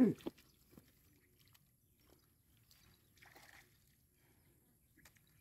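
Faint sloshing of hands groping in a shallow muddy puddle, with a soft splash or rustle about three seconds in. A brief voice-like call at the very start falls in pitch.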